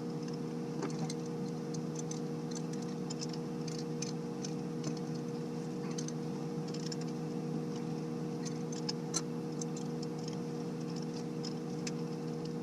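Two Teflon-taped pipe tees being screwed together by hand, giving faint, irregular ticks and scrapes from the threads. A steady hum runs underneath.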